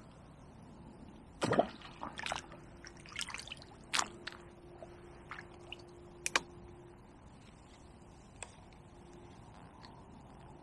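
Water splashing and dripping in a series of short, separate splashes and drips, the loudest about one and a half seconds in.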